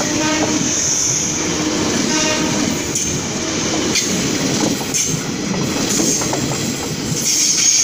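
JR 203-series electric commuter train passing close by at steady speed: a continuous rumble of wheels on rail with clacks over the rail joints about once a second, and a couple of brief faint tones near the start and about two seconds in.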